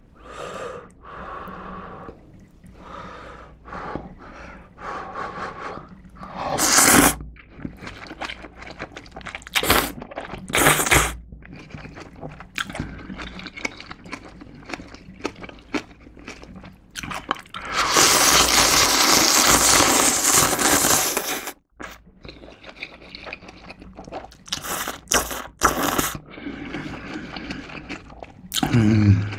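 Close-miked eating of ramen noodles with kimchi: wet chewing and crunching with a few short slurps, then one long loud slurp of noodles lasting about four seconds, starting around eighteen seconds in.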